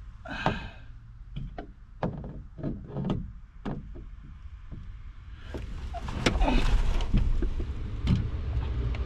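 Hands working at an old light fixture and its wiring in a boat cabin: scattered clicks and knocks, then louder bumping and rustling from about five and a half seconds in.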